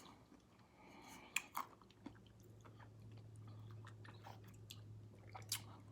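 Faint chewing of Crunch 'n Munch Birthday Cake glazed popcorn: a few soft, scattered crunches, the loudest about a second and a half in, with a low steady hum underneath from about two seconds in.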